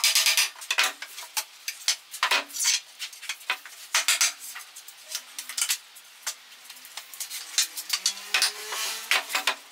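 Hammer and pallet wood: irregular sharp knocks with metallic clinks as pallet planks and their nails are worked apart.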